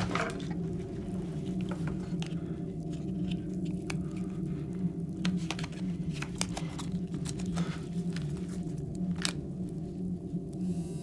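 Low, steady drone, with sharp clicks at irregular moments, some a second or two apart.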